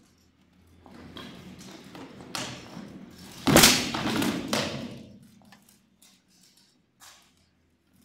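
Sword-and-shield fight in steel plate armour: an exchange of blows and a body clash, with several sharp hits of swords on shields and plate clanking, the loudest about three and a half seconds in, dying away after about five seconds.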